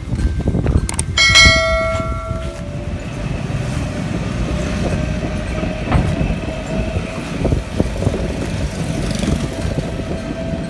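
Cabin noise of an electric tricycle on the move: a steady rumble and rattle from the road with a steady whine over it. About a second in, a bright bell-like chime rings out for about a second.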